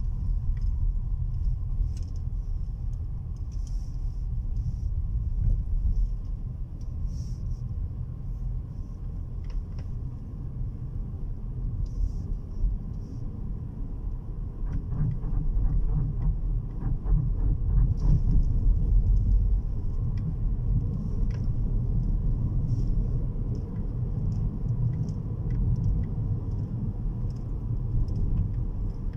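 Low, steady rumble of a car's engine and tyres heard from inside the cabin while driving, swelling a little past the middle.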